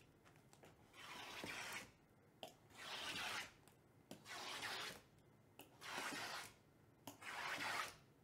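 A small blade slitting the seals on Topps Tier One card boxes one after another: five scraping strokes, each under a second long, with short pauses between them.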